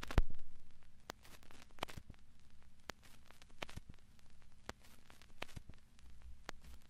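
Quiet intro: faint sharp clicks at irregular spacing, roughly one a second, the first the loudest, over a low steady hum, before the synthpop music comes in.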